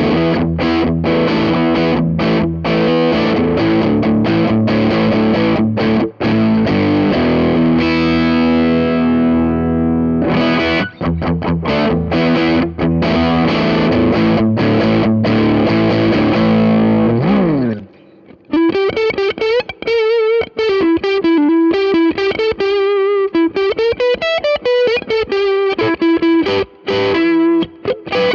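Ibanez RG550 electric guitar through an MXR Custom Badass '78 Distortion pedal: heavy distorted chords and riffs with short stops, ending in a falling pitch dive about two-thirds of the way through. Then a single-note lead line with wide vibrato.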